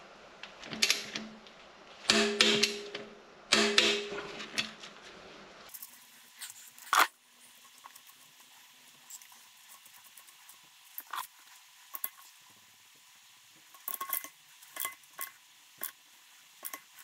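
Click-type torque wrench set to 26 Nm being worked around the bolts of a BBS LM split rim. It starts with several seconds of metal clinking and ratcheting. Then come sharp single clicks, one about seven seconds in, another about eleven seconds in, and several close together near the end, each the wrench breaking over as a bolt reaches the set torque.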